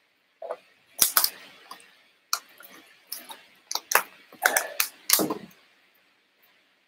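Something being handled close to the microphone as a drink is grabbed during a rest: a run of sharp clicks, knocks and clatter over about five seconds, ending with a heavier knock a little after five seconds in.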